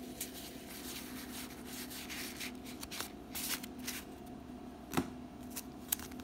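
A stack of 1991 Donruss baseball cards being flicked through by hand, the cardboard cards sliding and snapping softly against one another, with a sharper tap about five seconds in.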